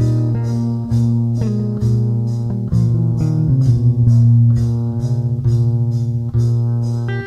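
Instrumental music: plucked guitar notes about twice a second over a sustained bass, with a descending run of notes midway.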